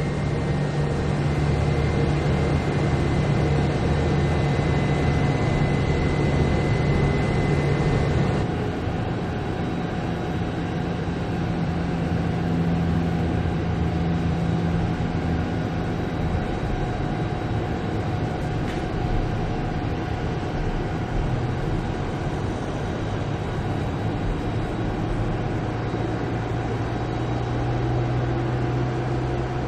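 Stealth bomber jet-engine sound effect: a steady low rumbling drone with humming tones, dropping a little in level about eight seconds in.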